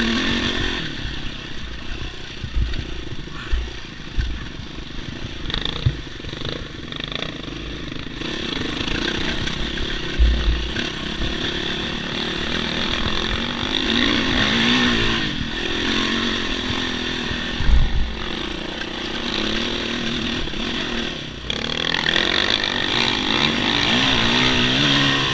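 Yamaha dirt bike engine running under load on a rocky trail, the revs rising and falling as the rider works the throttle. The bike rattles over the stones, with a couple of low thumps about ten and eighteen seconds in.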